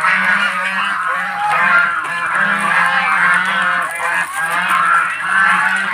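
A flock of domestic geese honking at feeding time, many calls overlapping without a break.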